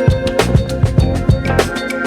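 Background music with a steady drum beat, guitar and a held note.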